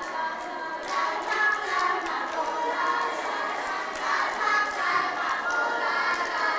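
A group of young girls singing a song together, with hand claps at intervals.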